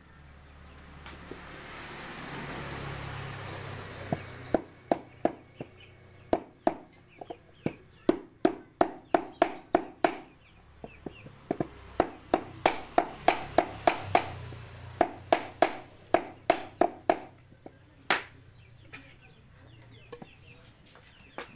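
Rapid metal-on-metal taps of a hammer driving a new oil seal into a Yamaha motorcycle front fork tube, about three to four strikes a second with a short ring after each, in several runs separated by brief pauses.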